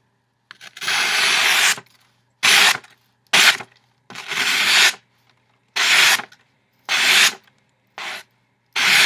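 Benchmade 741 Onslaught knife blade cutting through material in about eight separate rasping strokes, the first and longest about a second in, the rest shorter and spaced under a second apart.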